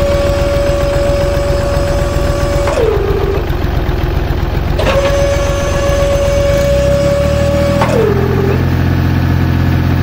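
A small motor running with a steady high whine over a low hum. The whine sags in pitch and dies away twice, about three and eight seconds in, and picks up again in between.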